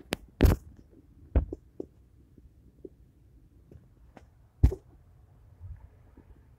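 Scattered sharp clicks and dull knocks, about half a dozen, most of them in the first two seconds and one loud one near the end, with faint background noise between them.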